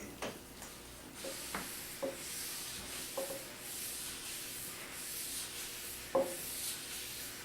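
Sanding sealer being rubbed into a wooden tabletop with an applicator: a steady series of hissing strokes, with a few light knocks, the loudest about six seconds in.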